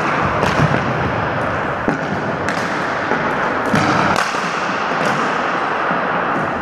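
Ball hockey play in a gymnasium: a string of sharp clacks and knocks from hockey sticks striking the floor, each other and the ball, over a steady echoing din of the hall.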